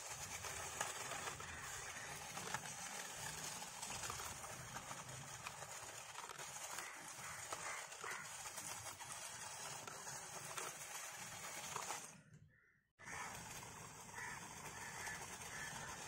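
Faint steady outdoor hiss with a few scattered bird calls. The sound cuts out completely for about a second near the end.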